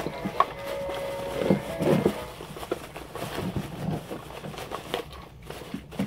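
A large plastic bag crinkling and rustling as it is handled, with a cardboard box being opened and rummaged. A steady electronic tone carries on from before and stops about one and a half seconds in.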